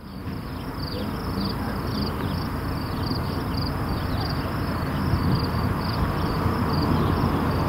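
Insect chirping, short pulsed chirps repeated about twice a second, over a low rumble that slowly builds louder.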